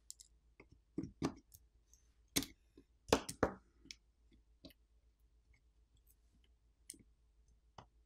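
Light, irregular clicks and taps of a precision screwdriver and fingertips against a smartphone's frame and main board, as the board's single Phillips screw is removed and the board is worked loose. The loudest taps come about three seconds in.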